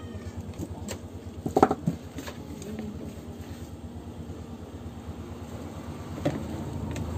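Steady low rumble with a sharp short knock about one and a half seconds in; shortly after six seconds a wrapped bar of soap is set down into a plastic basket tray with a brief clack.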